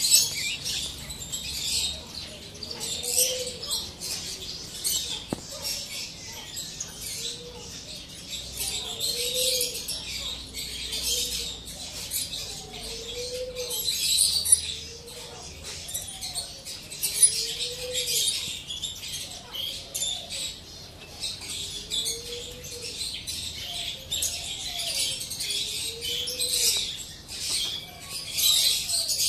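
Dense, continuous chirping of many small birds, with a dove cooing over it about every two seconds.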